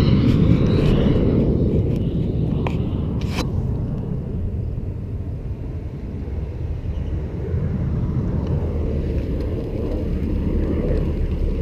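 Low, steady rumble of a Suzuki DR-Z400SM supermoto's single-cylinder four-stroke engine running at low speed as the bike rolls onto the shoulder. A couple of sharp clicks come about three seconds in, and the rumble dips in level near the middle before settling steady again.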